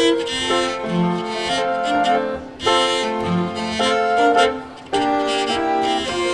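Chamber ensemble of flute, violin, cello and grand piano playing a Christmas piece, with brief breaks between phrases about two and a half and five seconds in.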